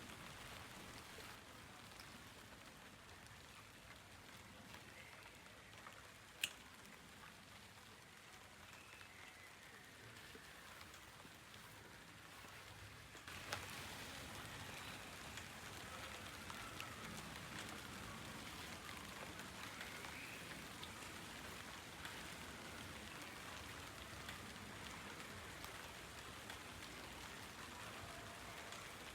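Steady rain falling, with scattered drops pattering and a single sharp tap about six seconds in. The rain grows louder a little before halfway through.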